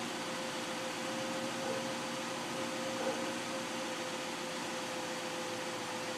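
Freshly swapped engine in a Dodge Neon running steadily at idle, an even mechanical hum with a steady whine over it.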